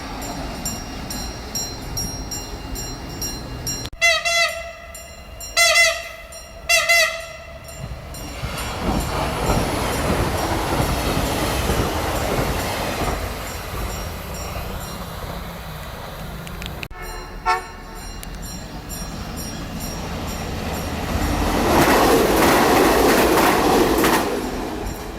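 Train horn sounding three short blasts about four seconds in, then a train passing with a steady rail rumble and one more short horn toot. The rumble grows loudest near the end.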